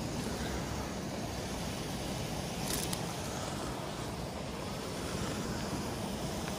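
Steady low outdoor rumble, with a brief click about three seconds in.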